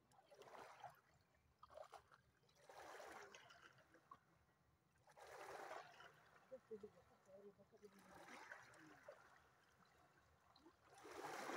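Faint small waves lapping and washing over the stones at the water's edge, one soft swash every two to three seconds.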